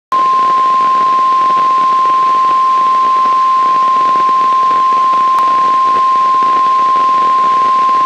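NOAA Weather Radio warning alarm tone: one steady, loud 1050 Hz tone over radio hiss, the signal that a warning broadcast (here a flash flood warning) is about to follow. A brief click cuts through it about five and a half seconds in.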